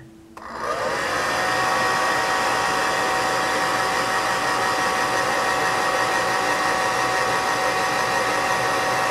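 Hair dryer switched on about half a second in, its motor whine rising as it spins up and then running steadily while blowing on freshly painted pieces to dry the paint.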